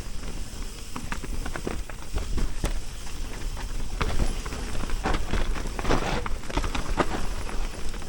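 Mountain bike rolling fast down a dirt trail: tyres crunching and crackling over the ground, with the sharp clicks and rattles of the bike over roots and bumps and a low rumble of wind on the microphone.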